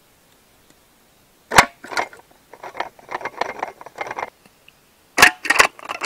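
Sharp snaps and a clattering rattle from a homemade bird trap of aluminium drink cans on a wooden stick axle with popsicle sticks and rubber bands, being worked by hand. There are two loud snaps about a second and a half in, a couple of seconds of rapid knocking, and another loud snap near the end.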